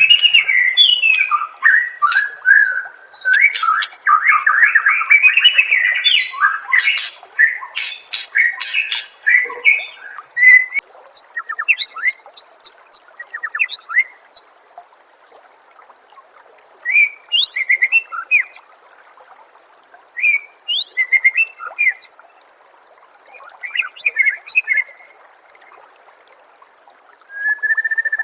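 White-rumped shama (murai batu) singing: a dense run of rapid, varied whistled phrases with sharp clicks for about the first ten seconds, then short bursts of chirps every second or two, over a steady faint hiss.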